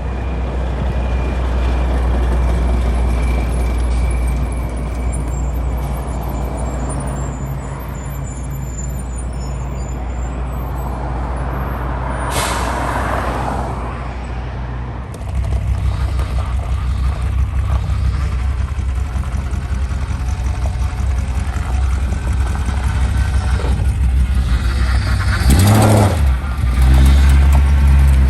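Heavy truck engine running steadily, with a hiss of air brakes about twelve seconds in. The engine gets louder a few seconds later, and a second loud air hiss comes near the end.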